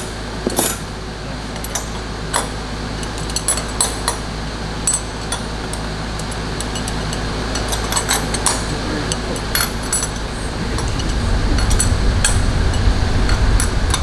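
Metal rods clinking as they are laid one by one into a metal jig for a fire-pit grate, with light irregular clinks every second or so. Under them a steady workshop hum, joined by a low rumble about ten seconds in.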